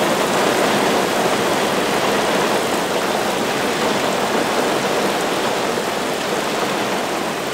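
Heavy rain pouring down, heard from inside a car as a dense, steady hiss that eases slightly over the seconds.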